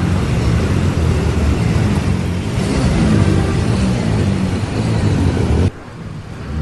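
Motor vehicles running through a flooded street, their engines a steady low hum under a dense wash of rain and water noise. The sound cuts off abruptly near the end.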